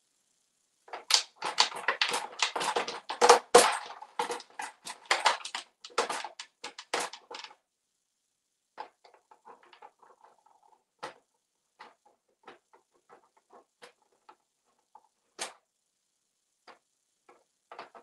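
African grey parrot's beak working at toy play money and its plastic tray: a dense run of crackling and clattering for about six seconds, then scattered single clicks and taps.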